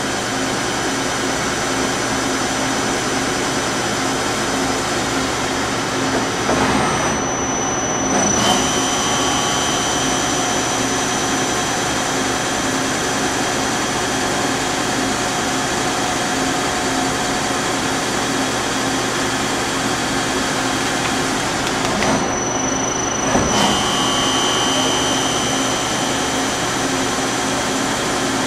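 1991 Okuma LB25C CNC lathe running a part program with its doors shut: a steady mechanical hum and whir. Twice, about seven and twenty-two seconds in, the sound shifts briefly and a steady high whine then comes in stronger as the machine moves on to the next step of the program.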